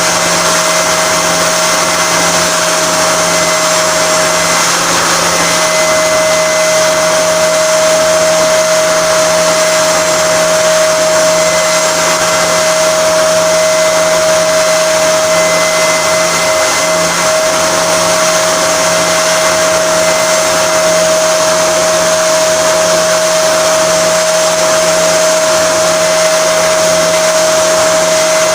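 Electric power tool running steadily at constant speed with a steady whine, carving and shaping the wooden guitar neck and headstock.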